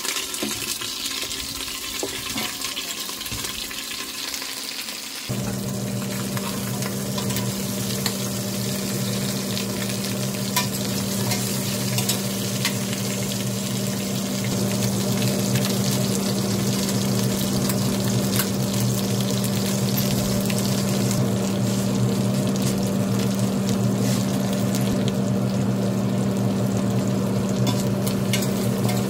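Pig feet sizzling as they fry in a stainless steel pot with chopped garlic and onion, with scrapes and clicks as they are turned by hand. About five seconds in, a steady low electric hum starts and keeps going under the sizzle.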